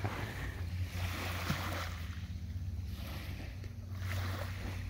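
Small waves lapping softly on a shell-and-pebble shore of calm bay water, with a soft hiss that swells and eases, over a steady low rumble.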